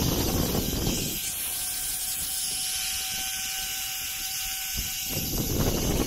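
Zipline trolley running down the steel cable: a steady hiss with a thin, even whine from the pulleys. Wind rumbles on the microphone at the start, fades for a few seconds, and comes back near the end.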